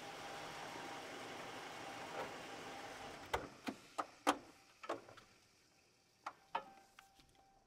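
A steady low hiss with a faint hum, then from about three seconds in a run of about eight sharp, irregular clicks and knocks, each ringing briefly; the loudest falls just past four seconds.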